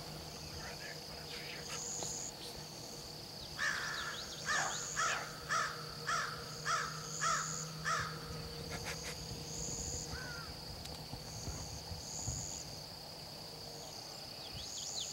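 A crow cawing about eight times in a row, a little under two calls a second. A steady high insect drone and repeating insect buzzes run underneath.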